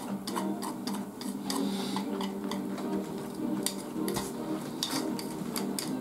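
Chopsticks clicking and scraping against a rice bowl as rice is scooped up and eaten, with irregular sharp ticks several times a second over a steady low hum.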